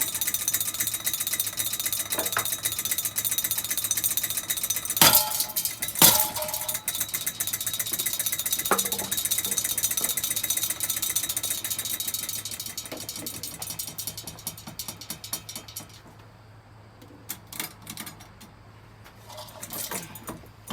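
A battered ceiling fan running with a fast, continuous rattle, hit hard twice about five and six seconds in. The rattle dies away over the following seconds, leaving scattered clinks and knocks.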